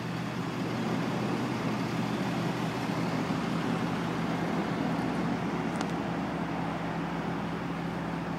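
Steady outdoor background hum and hiss with a constant low drone, like distant road traffic or a running machine.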